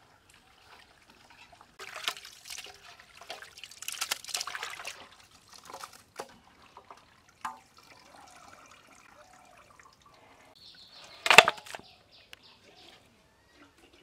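Hands washing raw mutton pieces in water in a metal pot: irregular bursts of splashing and sloshing, with water dripping off the meat as it is lifted. One loud, short clatter or splash about eleven seconds in.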